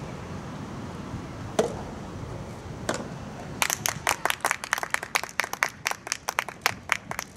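A few spectators clapping, a quick uneven run of claps starting about three and a half seconds in. Before it there are two single sharp knocks, over a steady outdoor background hiss.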